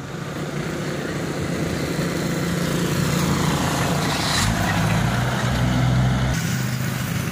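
Dump truck driving past close by, its engine hum over road noise growing louder to a peak about five seconds in, then easing off.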